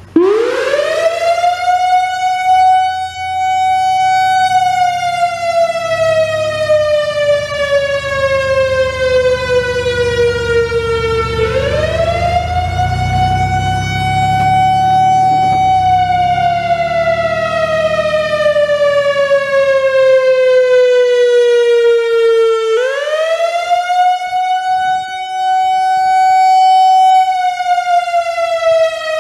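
Whelen WPS-3000 electronic outdoor warning siren sounding a test signal: it starts abruptly, the tone sweeping up quickly, holding, then sliding slowly down before jumping back up, three times about 11 seconds apart.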